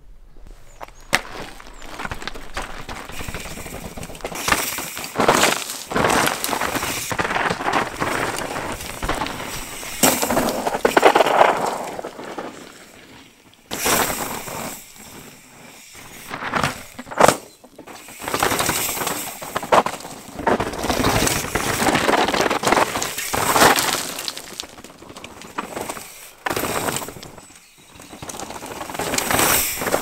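Mountain bikes ridden fast down a rocky dirt trail: tyres crunching over loose stones and dirt, with sharp clacks and knocks as the wheels hit rocks. The noise swells and falls away several times as riders pass.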